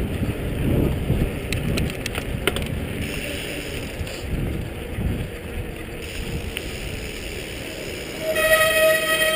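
Wind buffeting the microphone and tyre rumble as a mountain bike rolls over asphalt, with a few light clicks about two seconds in. Near the end a steady squealing tone lasting about a second and a half as the bike's disc brakes are applied to stop.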